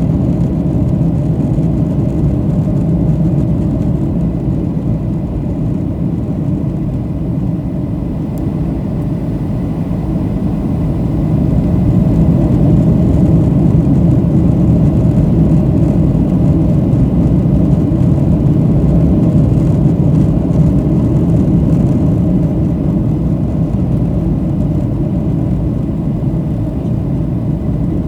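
Steady cabin rumble of a Boeing 737-700 in flight, the noise of its CFM56 turbofan engines and the airflow over the fuselage heard from a window seat. It gets a little louder about eleven seconds in and holds there.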